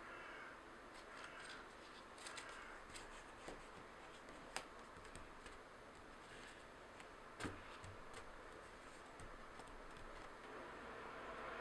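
Scissors cutting paper: quiet, scattered snips and light clicks, with two sharper clicks a few seconds apart.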